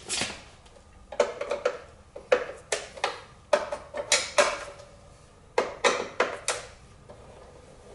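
Hand tool clinking and knocking against metal parts of a motorcycle during repair work: irregular sharp metallic clicks in small clusters, dying away near the end.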